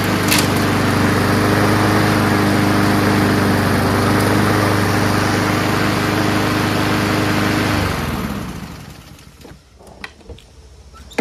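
Honda GCV160 single-cylinder lawn mower engine running steadily at a constant speed, then shutting off about eight seconds in and winding down to a stop, followed by a few light clicks.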